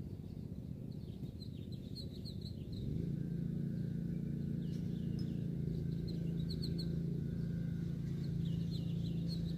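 Birds chirping in short repeated runs of notes. About three seconds in, a steady low motor hum comes in and becomes the loudest sound.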